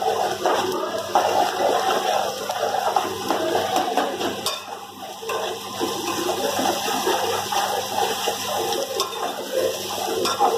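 Sliced onions, green chillies, curry leaves and ginger sizzling in hot oil in an aluminium pan while a ladle stirs them: a steady crackling hiss of the aromatics being sautéed.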